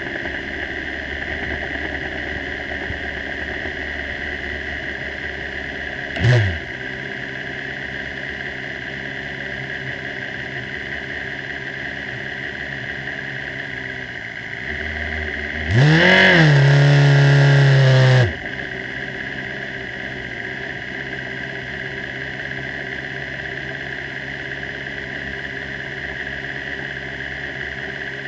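Formula 3 single-seater engine idling at low revs, heard from on board the car. It is blipped once about six seconds in, then near the middle it revs up and holds there loudly for about two seconds before dropping back to idle.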